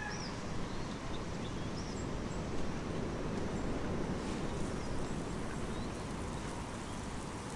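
Outdoor ambience: a steady rushing hiss of background noise, with scattered short, high bird chirps.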